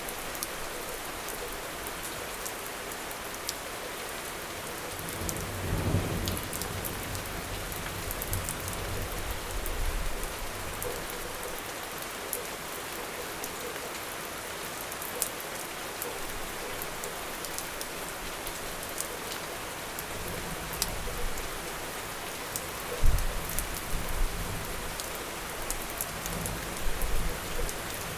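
Steady rain falling on hard surfaces, with scattered close drops ticking. Low rumbles of thunder swell a few times, about five seconds in and again in the last few seconds.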